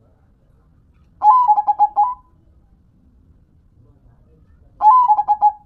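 Zebra dove (perkutut) cooing: two song phrases, each a rising first note followed by a quick run of about five short coos. The first phrase comes about a second in, the second near the end.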